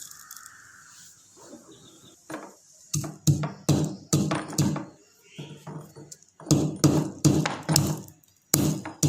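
Black pepper being pounded in a small mortar with a pestle: a run of dull strikes, about three a second, starting a couple of seconds in, with a short pause in the middle.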